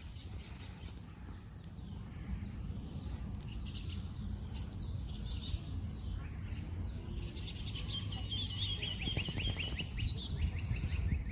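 Several wild birds chirping and calling, with one bird giving a quick run of repeated notes, falling slightly in pitch, about nine seconds in. Under them runs a steady high insect buzz and a low rumble.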